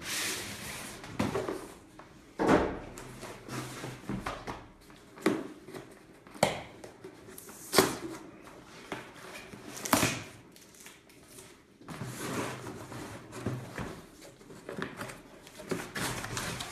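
Cardboard boxes being handled and opened: rustling and scraping of cardboard, packing tape being slit with a small blade, and sharp knocks as the box is set down and shifted on a table, loudest about 8 and 10 seconds in.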